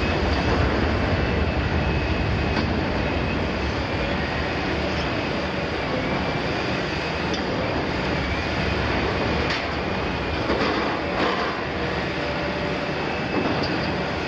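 Liebherr 974 demolition excavator working the steel of a double-walled oil tank: a steady diesel and hydraulic drone under a high, wavering metallic squeal, with a few sharp metal cracks a little past halfway.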